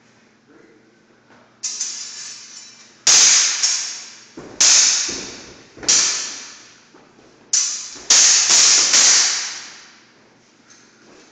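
Hand-and-a-half sword and basket-hilted broadsword clashing blade on blade in sparring: about nine sharp ringing strikes in quick exchanges, some in rapid pairs, each ringing out for about a second.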